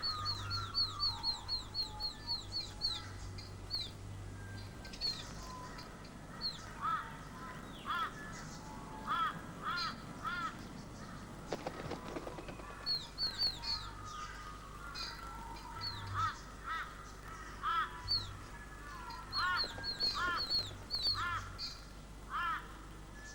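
Young dollarbirds calling: quick runs of high, falling chirps, about five a second at the start and again in later spells, with short runs of lower, arched calls in between.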